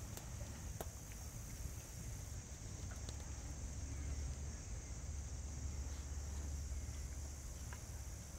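Quiet outdoor ambience: a steady low rumble and a steady high-pitched hiss, with a few faint clicks.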